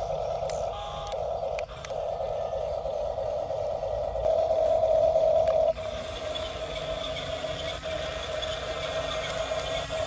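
Small electric drive motors and gearboxes of a toy RC crawler bulldozer whining steadily as it drives its tracks and pushes gravel, getting louder for a second or two past the middle.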